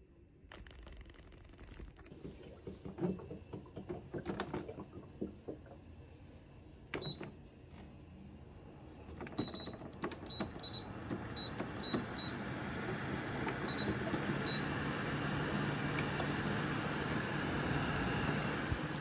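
A humidifying air purifier's control panel beeping a dozen or so times as its buttons are pressed, after a few handling knocks. Its fan then speeds up into a steady rushing noise with a low hum.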